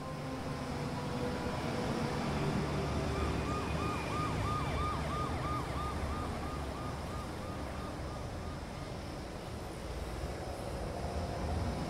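An emergency-vehicle siren in a fast yelp, about three rising-and-falling sweeps a second. It comes in a few seconds in and fades out a couple of seconds before the end, over a steady low rumble.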